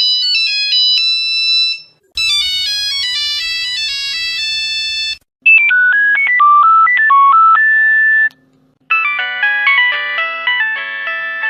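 Nokia mobile phone ringtones played one after another: short electronic melodies of a few seconds each, some with chords, separated by brief silent gaps. One tune ends near the start and three more follow.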